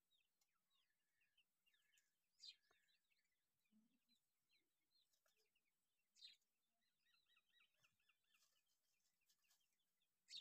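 Young partridge (teetar) chicks peeping and chirping softly, short high calls in quick succession, with three louder sharp calls, about two and a half, six and ten seconds in.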